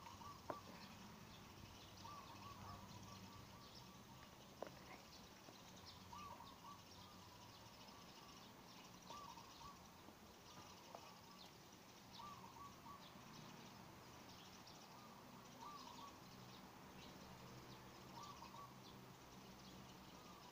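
Faint outdoor ambience: a bird giving short groups of calls every couple of seconds, over a low steady hum.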